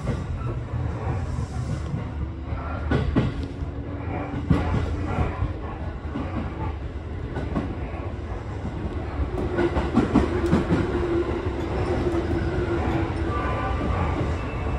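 Interior running sound of a JR 205-series electric train: a steady rumble of steel wheels on rail, with scattered clicks over joints and points. A louder stretch with a held hum comes about two-thirds in, as an oncoming train passes on the adjacent track.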